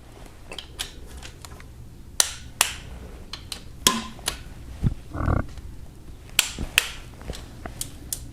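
Hand tools at work on a Kia 2.4 GDI engine's timing chain tensioner: a torque wrench set to 10.7 newton metres tightening its bolts, giving sharp metallic clicks and taps at irregular intervals.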